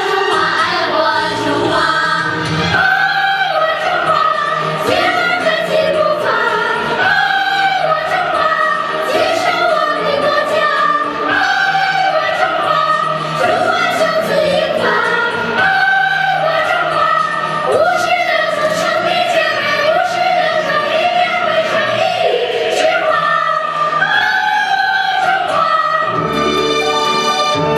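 Children's choir singing in unison over musical accompaniment. Near the end the voices stop and an instrumental passage of sustained chords takes over.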